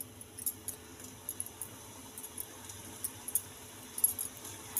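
Gulab jamun dough balls frying in hot oil in a steel pan: a soft sizzle with many small, scattered crackles.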